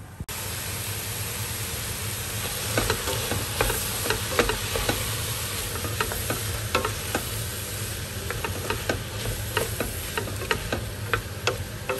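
Fried onion, garlic, spices and tomato puree sizzling in olive oil in a pan while being stirred, with frequent scrapes and clicks of the stirring utensil against the pan. The sizzle comes in suddenly just after the start.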